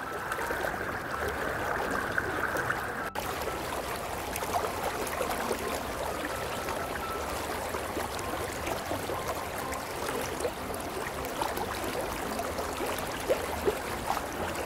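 A fast-flowing river, swollen with monsoon rain, rushing steadily. A couple of short, sharper sounds rise above it near the end.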